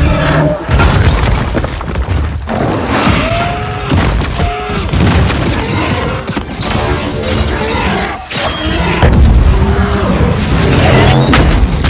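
Film battle sound mix: repeated heavy booms, thuds and crashes of explosions and impacts over a dramatic music score.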